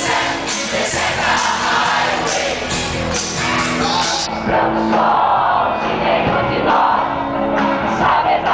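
Live acoustic band playing: a man singing over strummed acoustic guitars, with the bright strumming easing off about halfway through.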